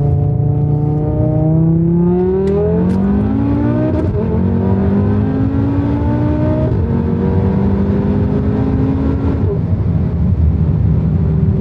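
Turbocharged five-cylinder engine from an Audi RS3, heard from inside the cabin at full throttle. Its note rises hard through each gear and drops sharply at quick upshifts about four, six and a half, and nine and a half seconds in.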